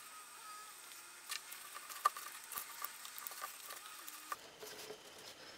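Faint handling noise: scattered light clicks and taps of hands moving tools and pressing a fabric cover onto a plastic speaker housing.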